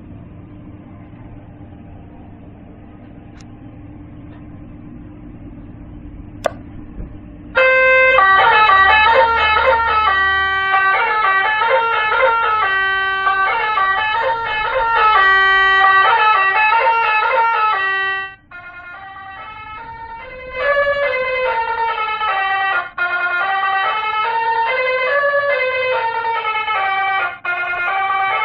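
60-watt Basuri telolet horn module playing its multi-tone horn melodies. After a low rumble and a single click, the horn starts loud about seven and a half seconds in with a fast stepping tune. About ten seconds later it breaks off, then plays a second tune of rising and falling tones, interrupted twice briefly.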